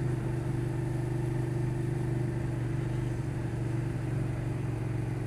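Motorcycle engine running at a steady, unchanging pitch over a steady hiss.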